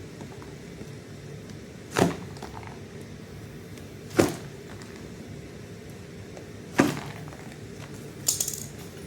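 A cardboard shipping box being worked open: three sharp clacks about two seconds apart, then a brief crinkly rustle of packing material near the end, over a low steady room hum.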